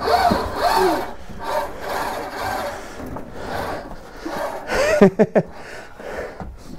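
Stair-climbing hand truck loaded with an old boiler creaking and rubbing as it works on the stairs, with squeaky rising-and-falling creaks near the start. A quick cluster of loud, sharp squeaks about five seconds in.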